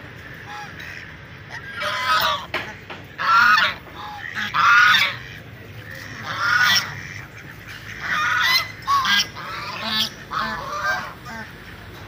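Domestic ducks and geese calling: a run of about eight loud honking calls, spaced irregularly a second or so apart, some coming in quick pairs.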